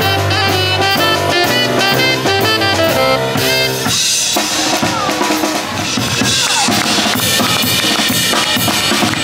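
Live band music: saxophone over electric keyboard for the first few seconds, giving way about four seconds in to a drum kit being played, with cymbals, snare and bass drum.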